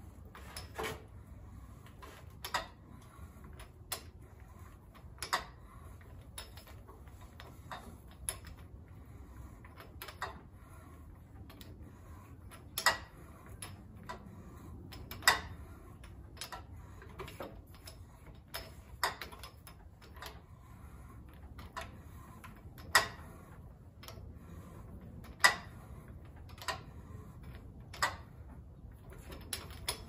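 A hand tap turned through a tapping guide, cutting 7/16 fine threads into a drilled cast Suzuki Samurai hub. It gives sharp, irregular clicks about once every second or so.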